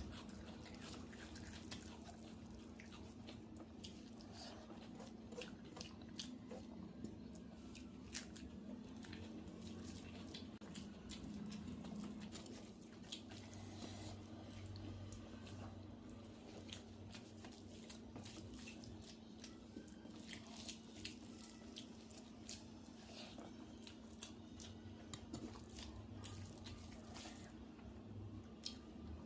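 Close-up eating sounds: chewing and wet mouth clicks and smacks of someone eating rice and curry, with scattered small crunches, over a faint steady hum.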